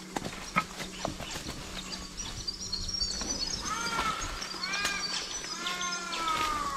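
Footsteps crunching through dry leaf litter and snapping twigs. From about halfway, birds call: a run of quick high chirps, then several arched calls, the last and loudest held for about a second near the end.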